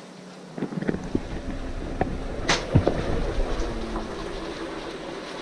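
Dry ice in a pan of boiling water, bubbling violently and spitting, with many sharp pops over a low rumbling churn that starts about half a second in and builds.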